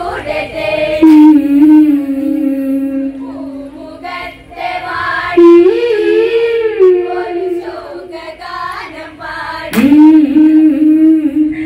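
Women singing an Onamkali folk song, holding long drawn-out notes that step up and down in pitch, with a new phrase starting near the end.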